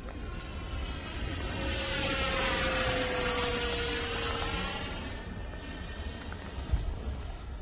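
Freewing F-16 RC jet's 90 mm electric ducted fan whining as the model flies past. The sound swells to a peak about two seconds in, then fades, its high whine dropping in pitch as it goes by.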